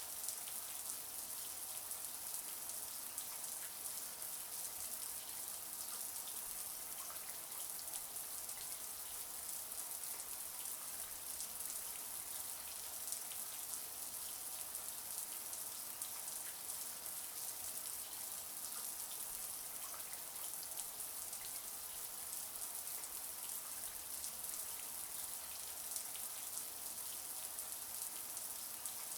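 Shower spray running steadily, a high hiss of water with many small droplet patters.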